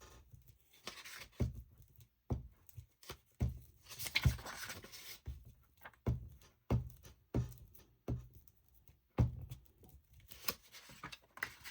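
Irregular light knocks and thumps on a tabletop with short stretches of paper rustling, as craft paper is handled and glued down by hand.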